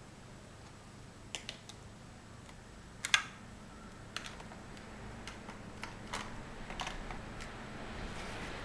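Large plastic Mega Bloks First Builders blocks clicking and knocking together as they are handled and pressed onto a model. Irregular sharp clicks, the loudest about three seconds in.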